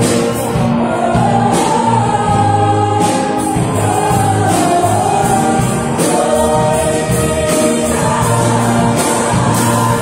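Mixed choir singing a gospel worship song in harmony, backed by a live band of keyboard, acoustic and electric guitars, bass guitar and drums, with cymbals struck at a steady beat.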